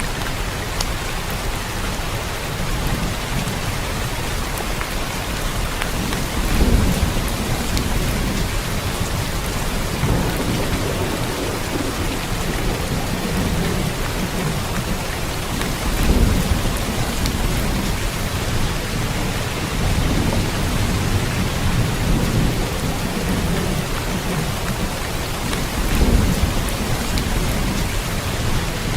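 Steady rain falling, with low rolls of thunder rumbling up about a third of the way in, around the middle, and again near the end.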